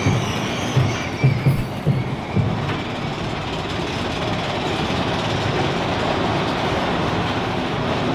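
Big Thunder Mountain Railroad's mine-train roller coaster running along its track, rattling and rumbling, with a few heavy thuds and a faint wheel squeal in the first two seconds before it settles into a steady rumble.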